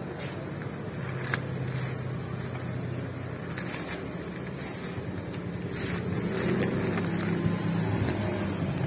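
Plastic courier mailer bag crinkling and rustling in short bursts as it is handled and turned over, over a steady low motor-like hum.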